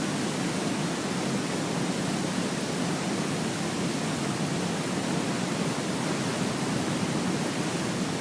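Waterfall rushing: a steady, even wash of falling water with no breaks or changes.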